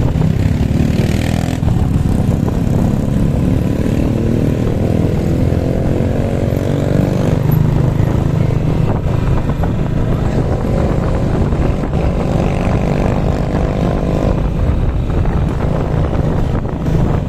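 Engine of the vehicle being ridden running steadily, climbing in pitch twice as it accelerates.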